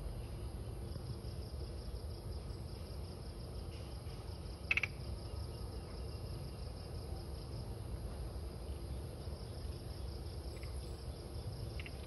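Night insects: a cricket trills in rapid pulses, pauses for a few seconds and starts again, over a steady high-pitched insect drone. A single short, sharp chirp comes about five seconds in.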